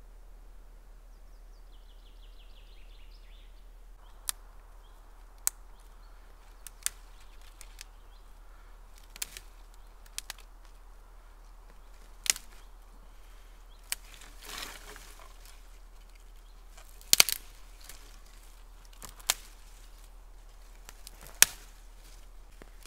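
Dry twigs snapped by hand one at a time: about ten sharp cracks, a second or two apart, with brush rustling between them. A bird chirps briefly about a second in.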